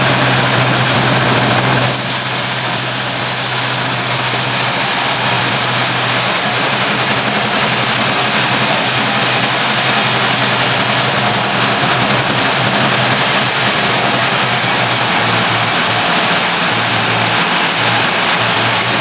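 Sawmill machinery running steadily: a loud, even drone with a hiss over it.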